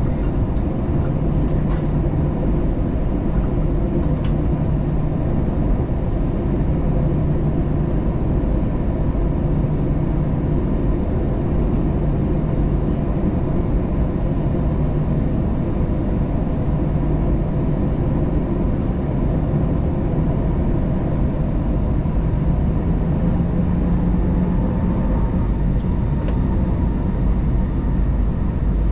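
Steady cabin noise inside an Airbus A320 with its engines running, a low drone within it coming and going every few seconds.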